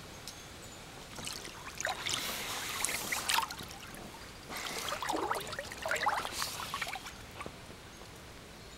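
Water splashing and sloshing in a shallow inflatable pool as a small Yorkshire terrier paddles and scrambles onto a vinyl pool float, in two spells starting about a second in and about four and a half seconds in.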